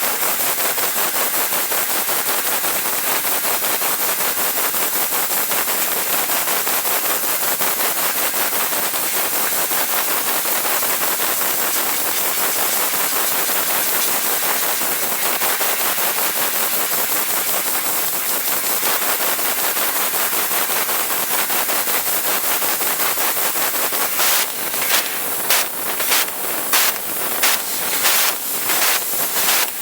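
Hans Laser G3015HF fiber laser cutting machine cutting sheet metal: a steady, dense crackling hiss from the cut and its assist-gas jet. Near the end it breaks into short bursts, about two a second, as the beam and gas switch on and off between short cuts.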